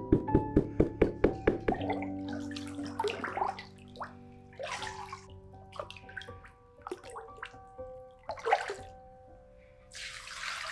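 Liquid clay slip being worked over background music with held piano-like notes: a wooden box sieve knocks rhythmically about four times a second for the first two seconds as it is shaken, then the slip sloshes in short splashes as it is stirred, and near the end slip is poured from a ladle into a cloth-lined bucket with a longer splash.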